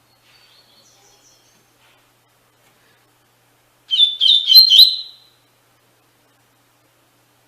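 Double-collared seedeater (coleiro) singing its 'tui-tui' song: faint twitters at first, then, just past halfway, one loud rapid phrase lasting about a second and a half.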